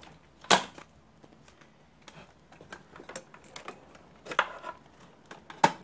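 Handling clicks and knocks as the battery charger's taped clip leads are moved and set down and a hand rests on the metal charger case. There is one sharp click about half a second in, and a few more near the end.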